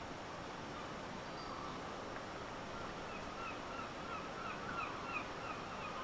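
A bird giving a rapid series of short, repeated calls, about three a second, starting faintly a second or so in and growing clearer, over a steady background hiss.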